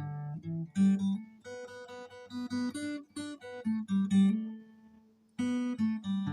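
Solo acoustic guitar playing single picked notes, with a short pause about three-quarters of the way through before the notes resume.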